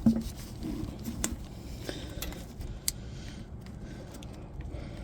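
A few scattered small metallic clicks and light clatter of tools and engine parts being handled.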